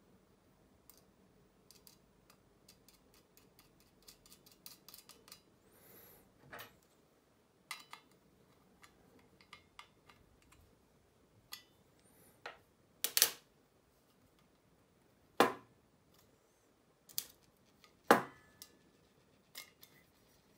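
Handling sounds of thin aluminium weather-vane parts being assembled: light clicks and ticks as a small cross key wrench turns a screw on the tail, then a few sharp metallic clacks, three loud ones in the last third.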